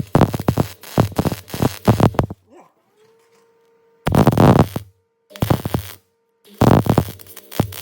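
MIG welder arc crackling in bursts, a long run at first and then three short runs with brief pauses between, while a nut is welded onto a broken bolt with the wire speed being adjusted mid-weld.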